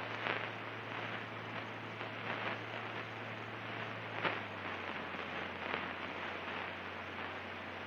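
Steady in-flight cabin noise of a Cirrus SR22: a constant low engine and propeller drone under an even hiss of airflow, with a few faint ticks.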